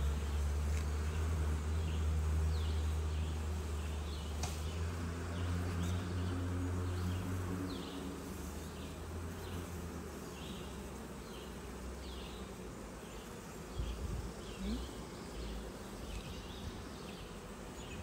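Honeybees buzzing around an open hive, a steady hum. A deep low rumble under it fades out about eight seconds in.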